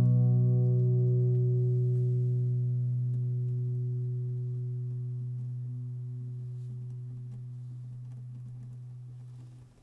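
Classical guitar's last chord ringing out and slowly fading, the higher notes dying away first while the lowest note sustains longest. The sound cuts off near the end.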